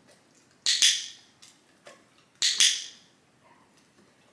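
Dog-training clicker clicked twice, about a second and a half apart. Each time it gives a sharp double click, marking the dog lowering its head.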